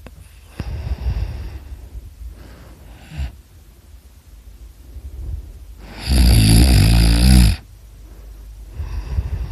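A person snoring heavily in sleep, one rattling snore per breath. There is a snore about half a second in and a short one near three seconds. A much louder, longer, rasping snore comes about six seconds in, and another begins near the end.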